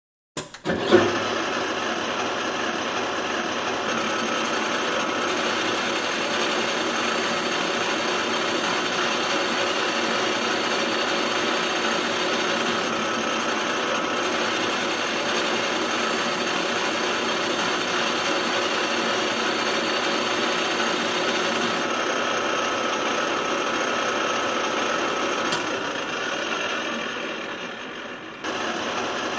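CNC pipe-drilling machine running, drilling holes in a metal pipe, with a steady mechanical whine over a grinding noise. It starts with a sharp knock about a second in, and near the end it fades down briefly before cutting back in.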